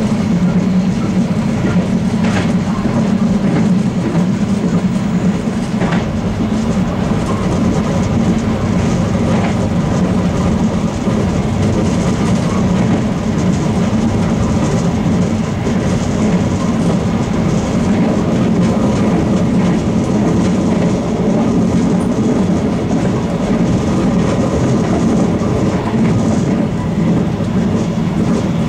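Ganz-Mavag electric multiple unit running at steady speed, heard from inside the train: a constant low rumble of wheels on track, with a few sharp clicks in the first ten seconds.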